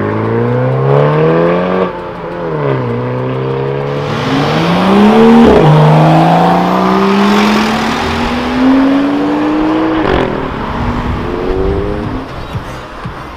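Sports cars accelerating hard away one after another, a BMW 4 Series coupé, a BMW M2 and a SEAT León Cupra. Their engine notes climb steeply with a sudden drop in pitch at each upshift, about three times. The loudest stretch is in the middle, as the M2 pulls away.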